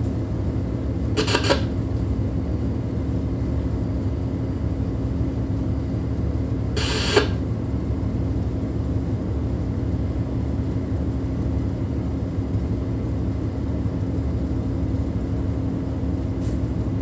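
Tugboat's diesel engine running steadily, a low drone with a steady hum, heard inside the wheelhouse. Two short bursts of hiss cut in, about a second in and about seven seconds in.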